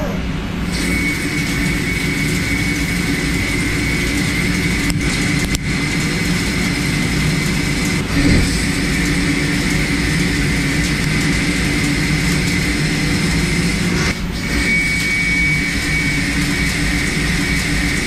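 Doosan Puma 2600SY CNC lathe cutting: a steady machine hum and hiss with a high steady whine from the cut.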